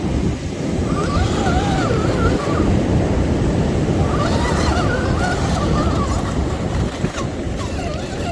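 Wind rumbling on the microphone and surf, with the whine of a small brushed electric motor rising and falling in pitch in short spells as the RC crawler is driven.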